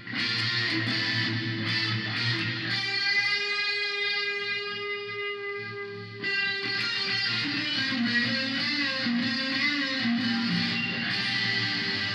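Electric guitar played through a Korg A5 multi-effects processor set to its Ens Hall reverb: strummed chords, then a single note left ringing for a few seconds, then picked notes with string bends near the end.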